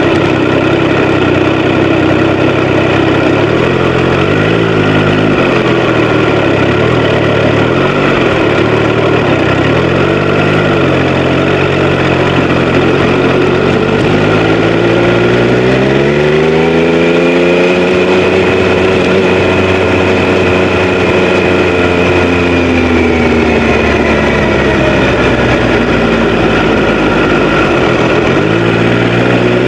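Triumph Street Triple RS inline-three engine and exhaust on the move: running at low revs with a few short throttle blips in the first ten seconds, then the revs climb smoothly about halfway through, hold higher for several seconds, fall away, and start climbing again at the end.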